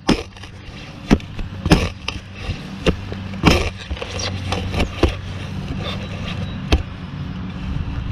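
Handling noise from searching with a metal detector, the detectorist moving on over the ground: irregular short scrapes and knocks roughly a second apart over a steady low hum.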